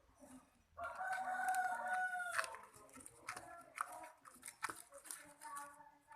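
A rooster crowing once, a loud held call of about a second and a half with its pitch dropping at the end, followed by scattered short wet clicks from slime being stirred in a container.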